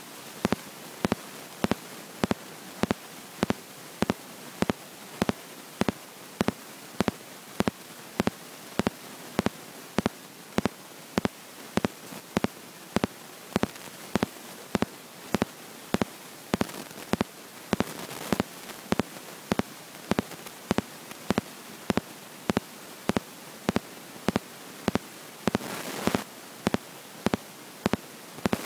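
Recording from an iPhone's microphone lying underwater: a steady hiss with sharp clicks repeating about twice a second, and two brief swells of rushing noise, one about two-thirds of the way in and one near the end.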